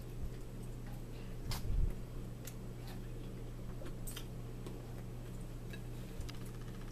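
Eating at a table: scattered light clicks of a fork tapping against a bowl and plate, with a thud about one and a half seconds in, over a steady low hum.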